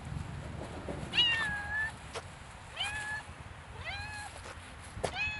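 A grey-and-white cat meowing four times, each meow rising at the start and then held; the first, about a second in, is the longest.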